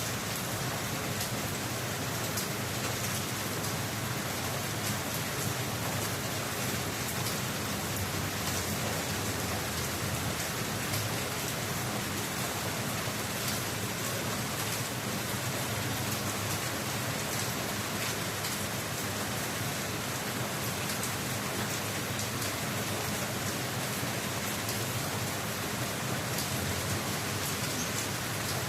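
Steady rain falling, with many small drops ticking on a hard surface.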